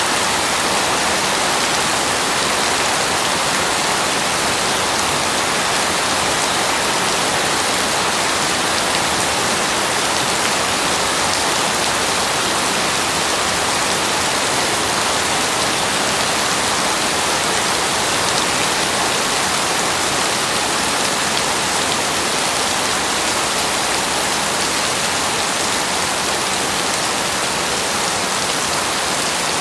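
Heavy rain pouring steadily, a dense even hiss of drops with no breaks and no thunder heard.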